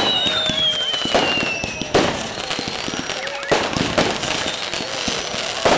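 Fireworks going off: a string of sharp bangs every second or so, with crackling between them and a falling whistle through the first two seconds.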